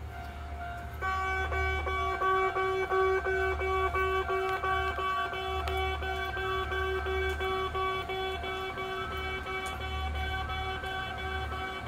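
Japanese railway level-crossing warning bell ringing, starting about a second in and repeating its ding at about two strikes a second. It signals that a train is approaching the crossing.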